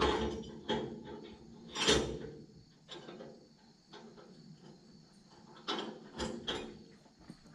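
Irregular clanks and scrapes of metal from work at a flatbed trailer's hitch: a burst at the start, another about two seconds in, and a cluster of three near the end.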